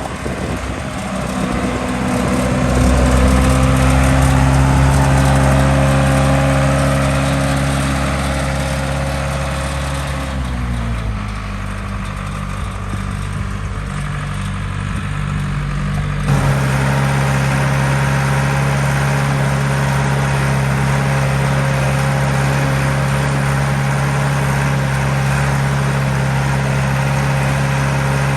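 John Deere 95 combine's engine running steadily. Its pitch slides down about ten seconds in, then the sound changes abruptly about sixteen seconds in to a steady, fuller running note that holds.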